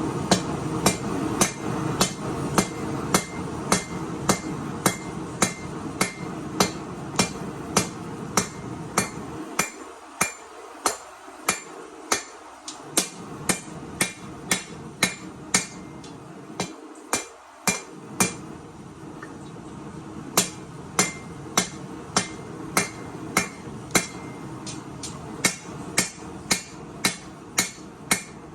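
Hand hammer striking steel on an anvil to forge a chef knife blade, at a steady rhythm of about two blows a second. Each blow has a short metallic ring, and the hammering pauses briefly twice, over a steady low rush of background noise.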